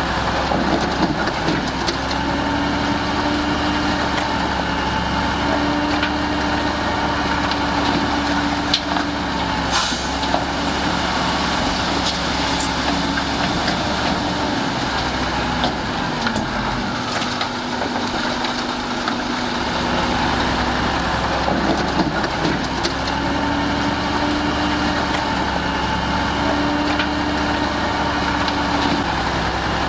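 Heavy diesel machinery running steadily, the engines of dump trucks and a crawler bulldozer at work, with a steady low rumble that eases off for a few seconds midway. A short sharp noise sounds about ten seconds in.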